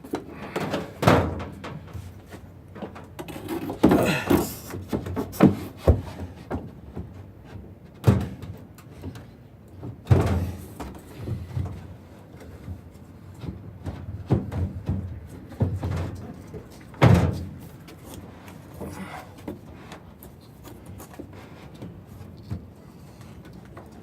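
Irregular knocks and thuds of a countertop microwave and its wooden base boards being shifted and set into a cabinet opening, with its plastic feet being fitted into drilled holes in the boards. The knocks come scattered for most of the time and die away near the end.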